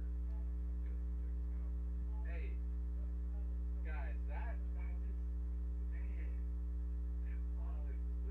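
Steady electrical mains hum, one low pitch with a ladder of overtones, with a few faint short calls or voice fragments over it.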